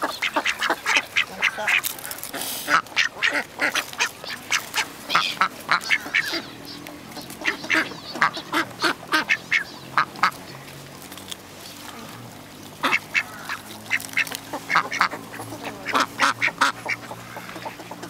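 A crowd of mallard ducks quacking close up, in quick runs of short calls with a brief lull about two-thirds of the way in.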